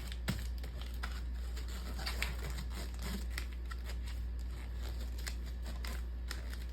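Paper crinkling with scattered small clicks and taps as a printed paper wrapper is lined up and pressed around a chocolate bar, over a steady low hum.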